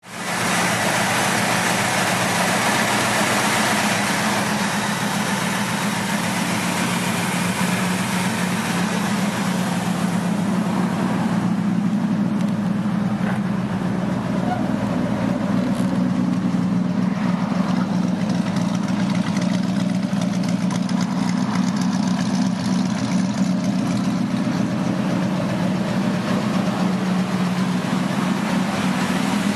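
1957 Chevy pickup's engine idling steadily, with a brighter rushing noise over it that fades about eleven seconds in.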